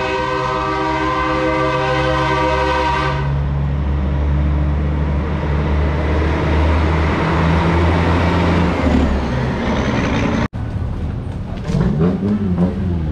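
A vehicle horn sounds in one long steady blast of about four seconds, over the low steady rumble of a motor vehicle's engine. The sound cuts out for a moment about ten seconds in, and a wavering tone follows near the end.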